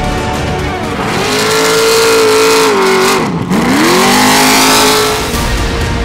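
Short-course off-road race truck engine revving high. About halfway through the revs drop sharply, then climb back up.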